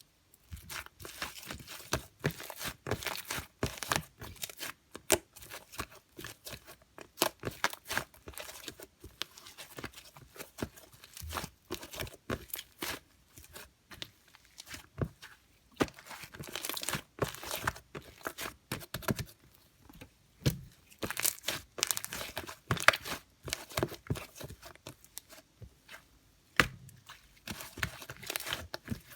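Slime being squeezed, stretched and pressed by hand, giving a continuous stream of small sticky pops, clicks and crackles with brief pauses between handfuls.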